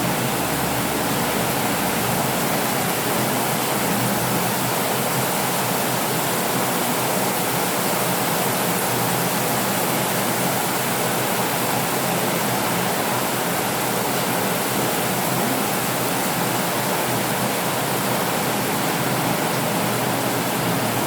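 Rain falling steadily: an even, unbroken hiss with no thunder.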